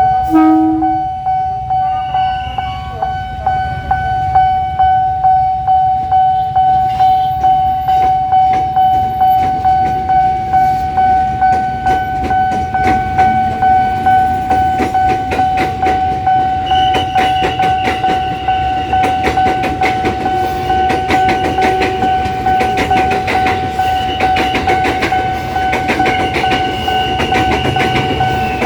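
Level-crossing warning alarm ringing a steady bell-like tone in pulses about twice a second, stopping near the end. Through it, a KRL electric commuter train pulls away across the crossing, its wheels clattering over the rail joints, the clatter building up over the second half.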